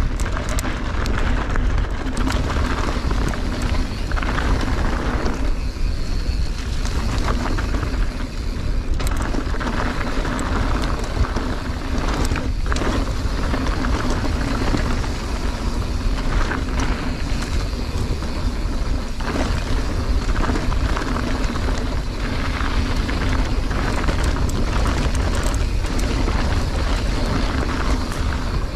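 Mountain bike rolling down a dry dirt and gravel trail: tyres rumbling over the dirt, with many small rattles and knocks from the bike over bumps and wind buffeting the microphone.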